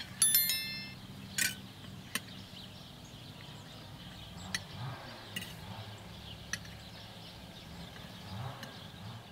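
Tableware clinking: a sharp ringing clink of metal or glass near the start, another about a second later, then a few light ticks over a faint low hum.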